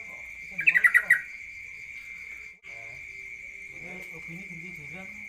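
Caged songbird giving one short, rapid burst of about six loud notes, a little over half a second in, over a steady high-pitched insect-like drone.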